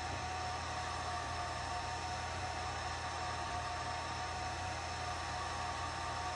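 Atomstack A10 Pro 50 W diode laser engraver running while it engraves a tile: a steady fan-like whirr with a few constant whining tones and a low hum underneath.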